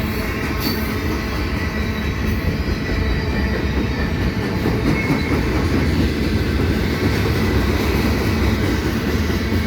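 Freight train cars rolling past: a loud, steady rumble of steel wheels on the rails.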